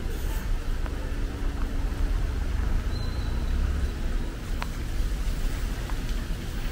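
Road traffic on a jammed city street: a steady low rumble of vehicle engines, with a brief faint high tone about three seconds in.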